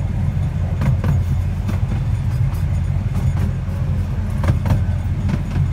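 Miniature railway carriage running along the track: a steady low rumble from the wheels and carriage, with a few sharp clicks as the wheels pass rail joints.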